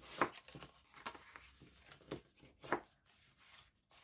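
Bone folder rubbed along score lines in cardstock to burnish the creases: several short scraping strokes, two louder ones near the start and about two-thirds through.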